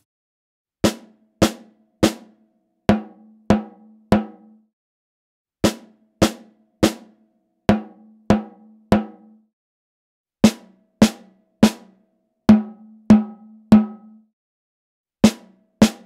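Recorded snare drum, top and bottom mics summed, played back on a loop: sharp single hits in groups of three, six per pass. In the first two passes the bottom mic is out of polarity and the hits are weaker. From about ten seconds in, with the bottom mic's phase inverted, the hits are louder and fuller in the low end.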